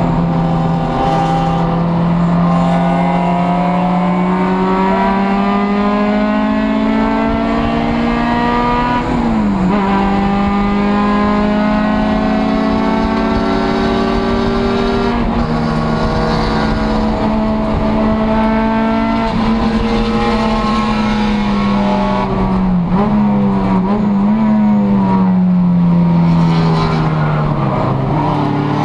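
Race car engine heard from inside the cabin, running hard with its pitch climbing slowly and dropping sharply about nine seconds in, as at an upshift. Near the end the revs dip and wobble several times and then fall away, as under braking with downshifts, before rising again.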